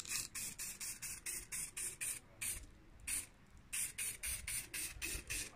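Aerosol spray can hissing in rapid short bursts, about six a second, thinning to a few single puffs in the middle before the quick bursts resume.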